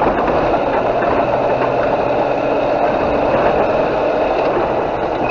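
Car engine and road noise heard from inside the cabin by a dashcam: a steady drone with a faint hum as the car drives along a wet, slushy road.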